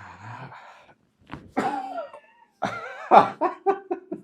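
A man's non-speech vocal sounds during a back manipulation: a long breath, then a voiced groan, then a run of short grunts, about five a second.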